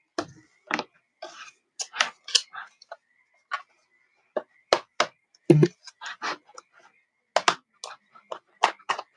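Plastic card being worked into the seam of a laptop's plastic bottom panel: irregular sharp clicks and scrapes as the panel's plastic clips pop loose.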